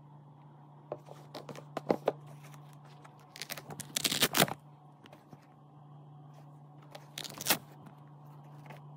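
Handling noise from a Nike sneaker being turned over in the hands close to the microphone: scattered rustles and scrapes, loudest in a cluster about halfway through and again near the end, over a steady low hum.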